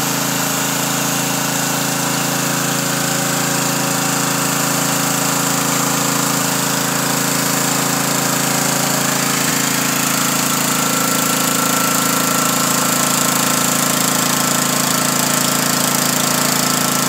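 Pressure washer running steadily: the motor and pump hum while the wand's jet sprays onto a concrete slab with a loud, even hiss. A higher steady whine joins in partway through.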